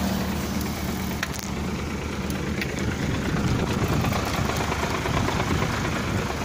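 Wind buffeting the microphone of a moving bike, with low rumble from tyres rolling on a rough concrete road surface. A steady hum fades out in the first half second.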